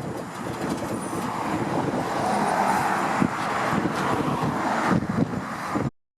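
Vehicle noise: a steady rush of engine and road noise that swells in the middle, then cuts off abruptly near the end.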